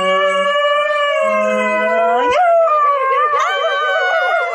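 A dog howling in one long, drawn-out howl that rises in pitch about two seconds in and then wavers up and down. A lower voice howls along with it in short stretches.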